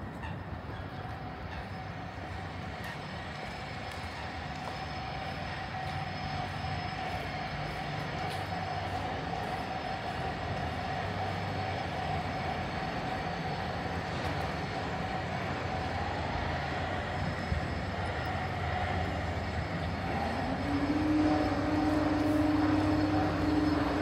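Steady mechanical hum with a thin whining tone, growing slowly louder; a lower steady tone joins about three seconds before the end.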